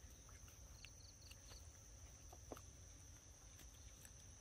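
Near silence: faint forest ambience with a steady high-pitched insect drone and a few soft, short chirps about a second in.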